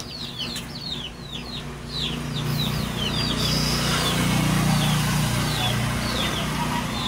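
Chicks peeping: quick high downward-sliding peeps, several a second. Beneath them a low steady drone swells in about two seconds in.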